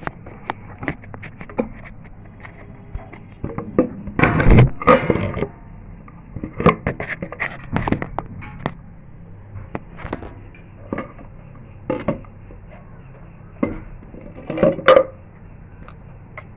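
Handling noise: a run of knocks, clinks and scrapes as kitchen things and the hand-held phone are moved about and set down. The loudest clatters come about four to five seconds in and again near the end, over a low steady hum.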